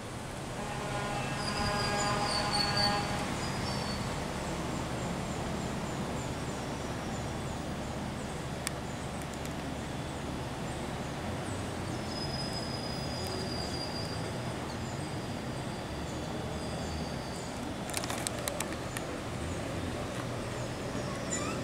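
Street ambience: a steady low engine and traffic hum with birds chirping. A pitched call or tone lasting about two seconds near the start is the loudest sound, and a few sharp clicks come later.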